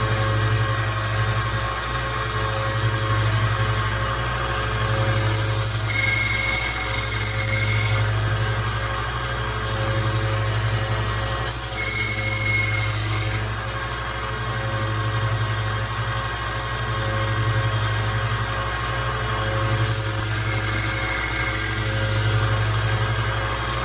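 A 1x30 belt sander running steadily with a 1,000 grit belt, as a knife blade is drawn across it freehand in three hissing passes of about two to three seconds each, a fourth starting near the end. The grinding is raising a burr along the edge.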